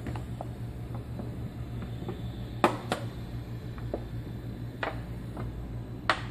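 Synek plastic beer bag crinkling and crackling as it inflates while being purged with CO2, with a few sharp crackles about two and a half, three, five and six seconds in. A steady low hum runs underneath.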